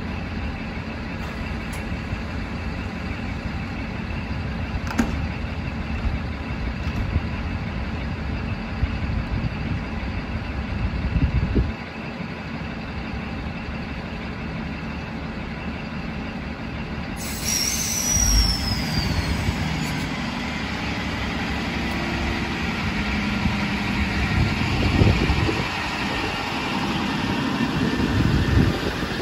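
Double-deck electric train standing at the platform with a steady hum from its equipment. About halfway a sudden hiss comes in with a short falling whistle. The train then pulls away, its running noise growing, with a few thumps.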